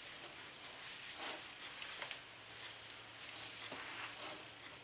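Faint handling of a stainless steel pot of mashed sweet potato: a few light knocks and scrapes, over a low steady hum.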